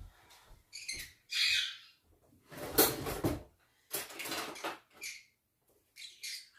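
Pet parrot calling in a series of short, high chirps and a few louder, harsher squawks.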